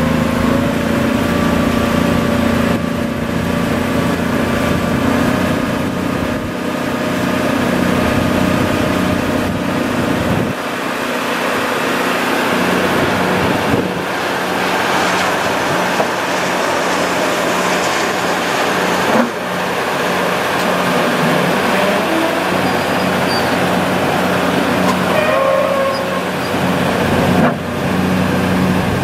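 Cummins L10 straight-six diesel engine of a 1990 Champion 740A motor grader running while its hydraulics swing the blade. The engine note is steady, with its lowest part dropping away about ten seconds in.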